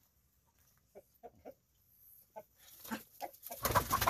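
Free-range chickens clucking: a few short, soft clucks, then a louder, noisy burst of squawking and commotion near the end, as a hen takes fright at the people walking up.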